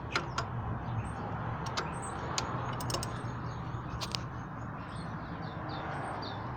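Scattered light clicks and taps of hand tools on the engine during belt adjustment, with small birds chirping over a steady low hum.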